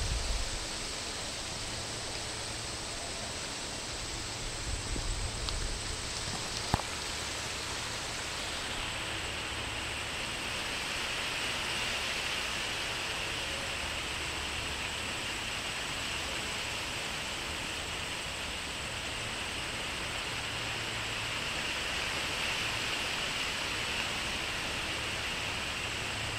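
Steady outdoor background hiss with a faint low rumble that comes and goes. A higher hiss strengthens about a third of the way in and then holds. One short click about seven seconds in.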